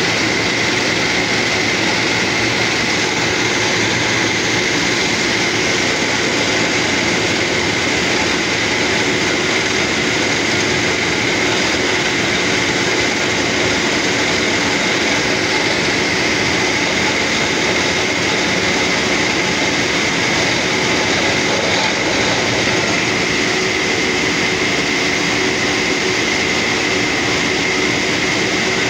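Compressor-driven borewell drilling rig running, a loud continuous mechanical noise with a steady high whine, as compressed air drives the bore and blows dust out of the hole.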